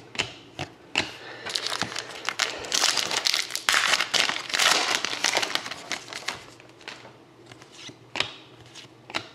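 Crinkling and rustling of trading-card pack wrappers and cards being handled, with scattered sharp clicks; the crinkling is densest from about a second and a half in to about six seconds.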